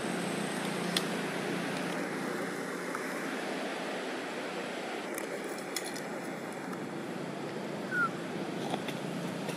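Steady outdoor background noise, like wind or distant traffic, with a faint click about a second in and a brief high chirp near the end.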